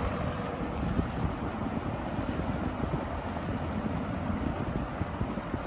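Mid-1970s TG&Y "Golden T" (Champion) H-20L-3 20-inch box fan running on low speed, a steady whir of blades and motor with a faint hum.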